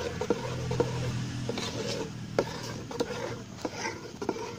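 A metal spoon scraping round a large metal pot and knocking against its side while stirring thick jackfruit halwa, with irregular short clicks over the scrape.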